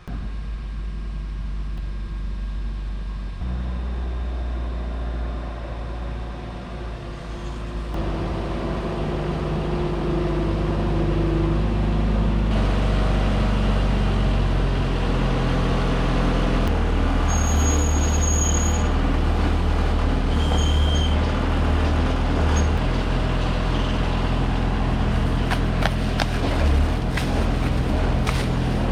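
Delivery truck's engine running as the truck manoeuvres, its pitch and loudness stepping up and down several times and growing louder partway through, with a short hiss in the middle.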